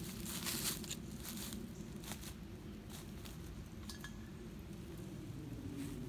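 Footsteps crunching and rustling through dry fallen leaves on the forest floor, heaviest in the first second and a half, then lighter rustles and a few small cracks, over a steady low rumble.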